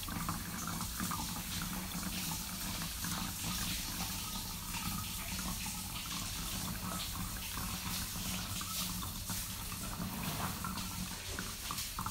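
Homemade salt water poured in a steady stream from a plastic jug into the neck of a plastic 1-litre bottle, filling it.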